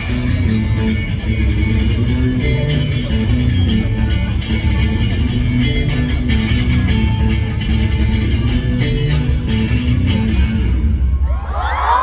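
Live band playing, electric guitar over bass guitar and drums with a steady cymbal beat. The band stops near the end and the crowd starts cheering and screaming.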